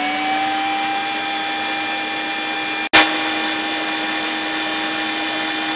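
Electric stand mixer's motor running steadily with a steady whine, its beaters creaming margarine in the bowl. There is a sharp click about three seconds in.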